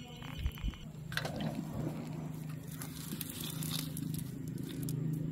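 Hands working through a wet nylon cast net lying on grass, picking out small fish: irregular rustling with scattered small clicks, over a steady low hum.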